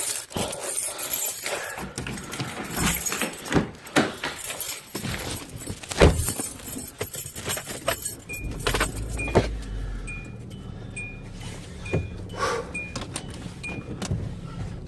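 Keys jangling and clicks of handling. About eight seconds in, a car engine comes on with a steady low hum, and a short dashboard warning chime repeats about twice a second.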